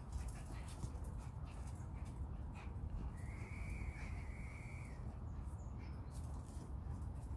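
Two schipperke dogs playing tug with a toy on stone paving: scattered clicks and scuffles from their feet over a low rumble. A high, drawn-out tone sounds for about two seconds near the middle.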